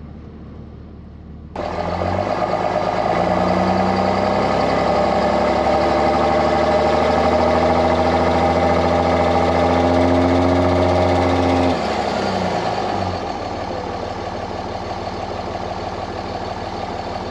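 Dodge Ram dually pickup's engine running as the truck creeps up onto plastic RV leveling blocks. The engine hum is quieter for the first second and a half, then louder. Its pitch rises about two seconds in, holds steady, and drops back about twelve seconds in as the truck eases off on the block.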